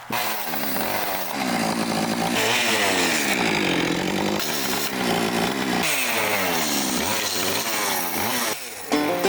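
Chainsaw cutting into wood, the engine speed rising and falling several times as the blade bites in and eases off. It stops shortly before the end, where banjo music comes in.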